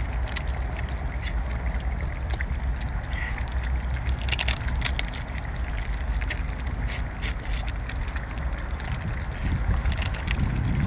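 Wind buffeting the microphone as a steady low rumble, with scattered sharp clicks and cracks as a cooked crab's shell is handled and bitten into.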